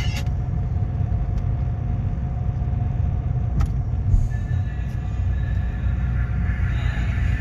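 Steady low rumble of a car's engine and tyres heard from inside the cabin while driving slowly in traffic; background music cuts off just after the start.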